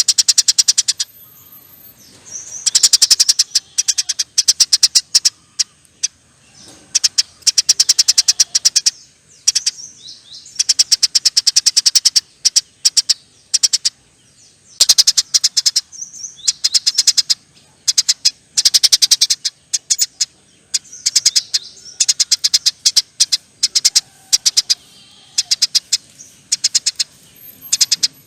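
Eurasian tree sparrow giving long, rapid chattering trills: fast trains of high, clicking chirps in bursts of one to two seconds with short pauses between, repeated over and over.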